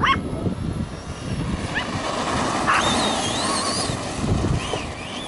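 Electric RC monster truck's motor whining, its pitch wavering up and down with the throttle, over a steady rumble of wind and handling noise on the microphone.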